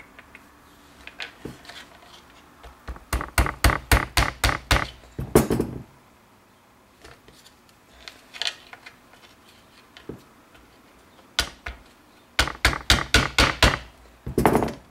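A metal spiral ring made from a fork is tapped against a wooden board in two quick runs of sharp taps, about four a second. Each run ends in a longer, louder knock, with scattered single clicks between the runs.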